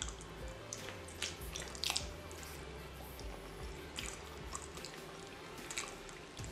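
Raw salmon slices being handled and pulled apart by hand, giving wet, sticky clicks and squishes scattered throughout.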